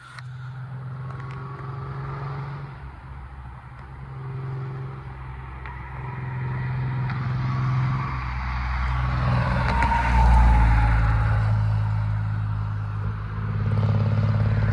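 Car traffic on the road: a steady low engine hum, with engine and tyre noise swelling to its loudest as a car passes about ten seconds in, and rising again near the end.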